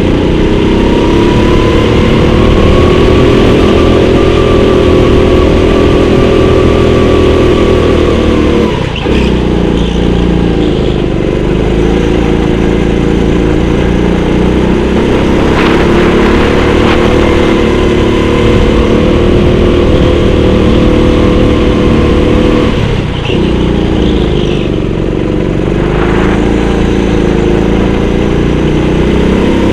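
Go-kart engine heard on board, running hard around the track, its pitch dipping and climbing back twice, about 9 and 23 seconds in, as the throttle is eased off and reapplied.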